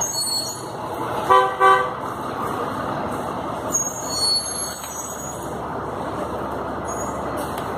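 Steady street traffic noise, with two short vehicle-horn toots about a second and a half in.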